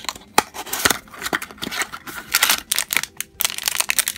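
Cardboard blind box being pried open by hand, then the wrapper inside torn and crinkled: a busy run of rustles, small snaps and tearing.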